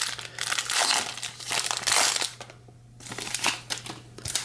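Foil wrapper of a Topps Series 1 jumbo card pack crinkling as hands pull it open around the cards, with a short pause about two and a half seconds in.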